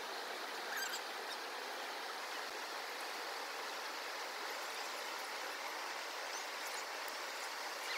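Fast river rapids rushing over rocks: a steady, even rush of white water.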